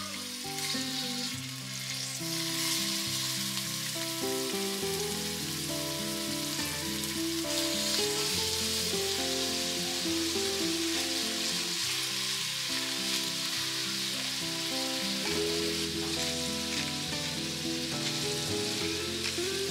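Raw shrimp sizzling in hot oil in a frying pan, a steady hiss that grows louder about two seconds in, under soft background music.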